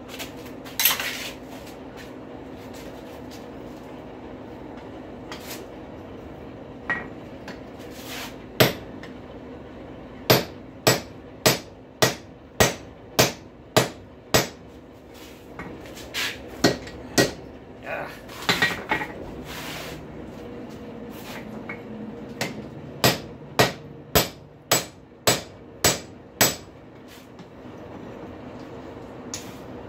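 Hand hammer striking a hot rail spike on an anvil while forging it: a few scattered clanks, then runs of blows at about two a second, over a steady hum.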